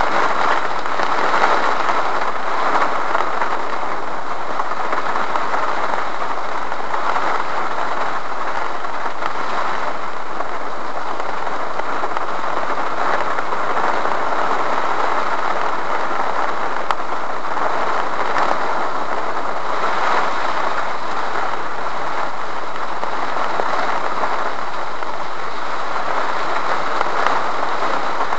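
Rain falling steadily on a stationary car's roof and windshield, heard from inside the cabin as an even, unbroken hiss.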